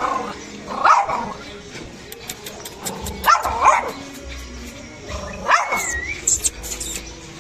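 Pekingese dog barking, about five short barks: one at the start, one about a second in, two close together midway, and one more a little after five seconds.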